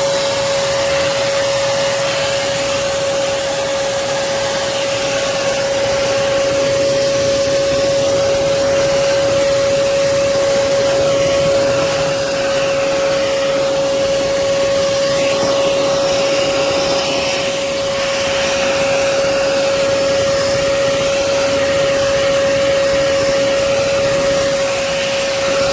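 Hoover Commercial PortaPower CH30000 bagged canister vacuum running with a steady whine over the rush of air, sucking up dust and spider webs through its attachment.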